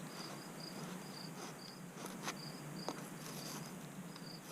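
Crickets chirping in short, repeated high-pitched pulses, with a few faint clicks and scrapes from the new car battery's terminal posts being cleaned.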